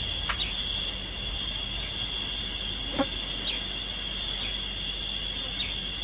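A steady, high-pitched insect drone with repeated trains of rapid chirping pulses from other insects, and a few short falling bird chirps. Two soft clicks come through, one just after the start and one about halfway.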